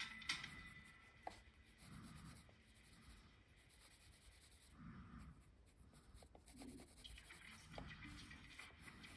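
Faint scratching of a pen nib on paper in short, irregular drawing strokes.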